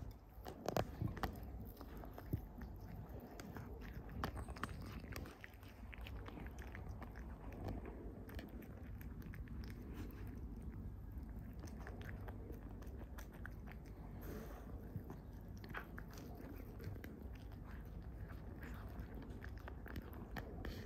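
A cat chewing and biting tuna fish: a continuous run of small chewing clicks, with a few louder bites about a second in and again just after two seconds.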